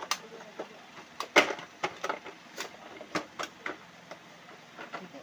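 Hard plastic parts of a child's dining chair clicking and knocking as they are handled and fitted together: a string of irregular sharp clicks, the loudest about a second and a half in.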